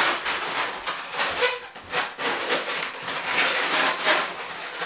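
Inflated latex twisting balloons rubbing against each other in irregular surges as hands twist and wrap them together.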